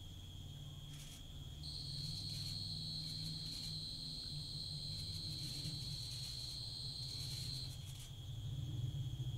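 Insects calling in steady high-pitched drones: one runs throughout, and a second, louder and slightly higher one joins about a second and a half in and stops near the end. A low rumble sits underneath.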